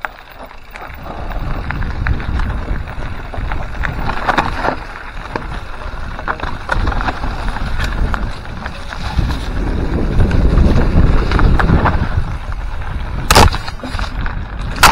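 Mountain bike descending a rough dirt trail at speed: wind buffeting the microphone and tyres rumbling over the ground, with frequent rattles and clicks from the bike. Two loud knocks come near the end as it hits bumps.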